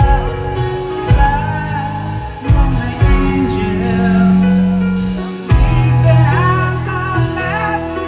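Hard rock band playing live and loud: electric guitars through amplifiers, bass and drums, with a male lead singer singing a held, wavering melody over them.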